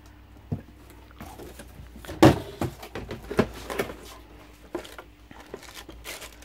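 Packaging being handled: a sharp knock about two seconds in, then scattered lighter knocks and rustling of cardboard and plastic bags as the filter's hoses are taken out of their box.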